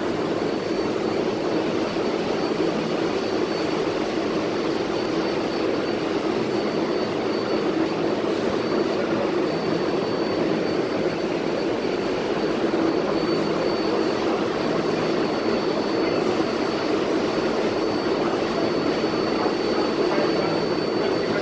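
R188 subway train standing at the platform, its equipment giving a steady drone that stays at one level, with a faint steady high whine over it.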